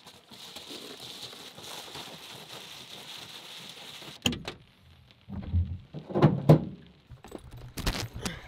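Clothing rustling as someone gets dressed in the cramped bed of a pickup under a camper shell, followed by a sharp click and several loud thumps and knocks in the second half as they shift about.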